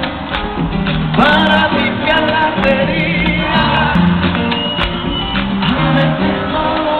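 Live band and male lead singer performing a salsa song in an arena, heard from among the audience, with some crowd shouts over the music.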